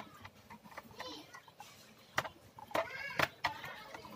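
A few sharp clicks and taps from screwdriver work on the plastic underside of a Toshiba C640 laptop, as screws are taken out, the loudest about two and three seconds in. Distant voices sound faintly in the background.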